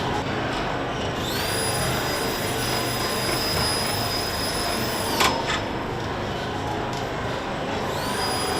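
Car assembly-line machinery: a steady hiss and rumble with a high electric whine that starts about a second in, stops with a single clunk about five seconds in, and starts again near the end.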